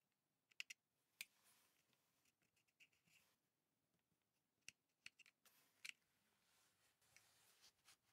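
Near silence broken by a few faint, short clicks and scrapes as plastic and metal parts on a chainsaw carburetor are handled.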